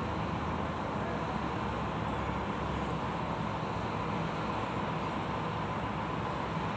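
Steady low engine rumble under a constant hiss, holding an even level without any rise or fall.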